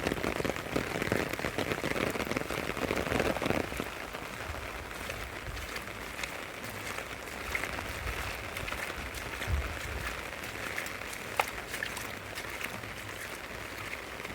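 Rain falling steadily, with scattered drops ticking close by. It is louder for the first three to four seconds, then settles to an even patter.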